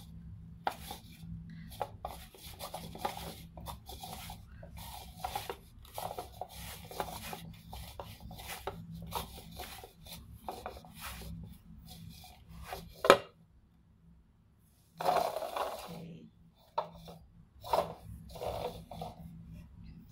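Hands kneading soft bread dough in a bowl: repeated rubbing, squishing strokes of dough against the bowl. There is a sharp knock about 13 seconds in, followed by a brief pause and more handling noises.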